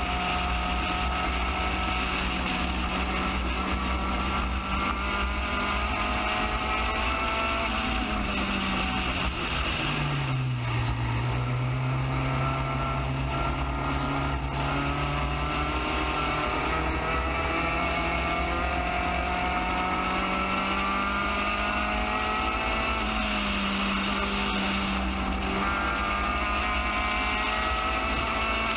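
Onboard sound of a Spec Racer Ford GEN3's four-cylinder engine running at high revs, with wind rush over the open cockpit. About eight seconds in the revs fall sharply, then climb slowly back up over the next dozen seconds and hold high again.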